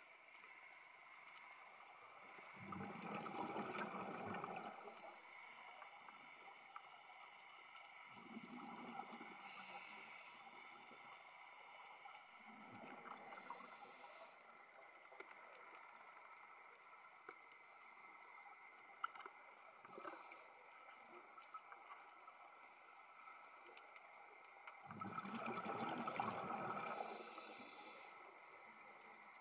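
Scuba diver breathing through a regulator underwater: a long gurgle of exhaled bubbles about three seconds in and another near the end, with fainter bubbling between.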